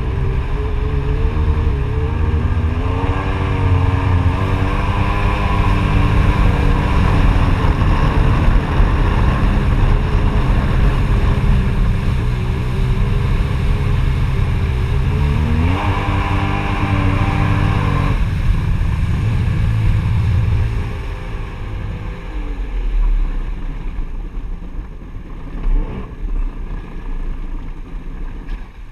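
Jet ski engine running under way with the rush of water, its pitch wandering and rising sharply past halfway before easing again. In the last several seconds it throttles back to a lower, quieter run as the craft slows.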